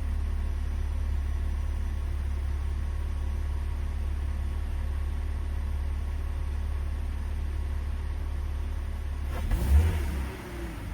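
BMW E46's engine running with a steady low drone, then revved briefly near the end before settling back.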